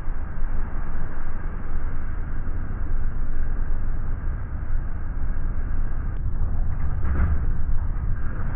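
Sport-fishing boat under way: a steady low rumble of engines and rushing water from the wake and hull, swelling briefly about seven seconds in.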